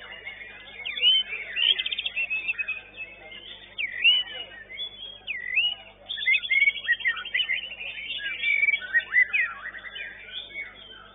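White-rumped shama (murai batu) singing: a varied run of quick whistled sweeps and chirps broken by fast trills, with a long rapid trill about six seconds in.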